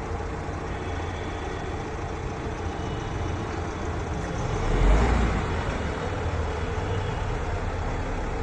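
Tata Harrier SUV moving, a steady rumble of running and wheel noise that swells about five seconds in. The car shows the brake-area noise that is later traced to a nail lodged in the brake pad.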